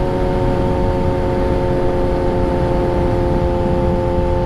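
Yamaha R3 parallel-twin engine running at a steady speed while cruising, its pitch unchanged, over heavy wind and road rumble.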